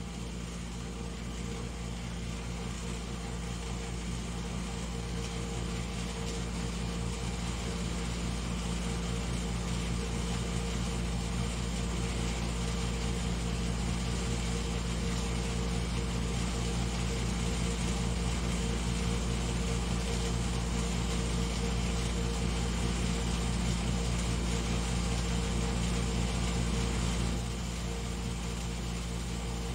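Steady mechanical hum with several held tones over a low rumble, slowly growing louder, then dropping abruptly about 27 seconds in.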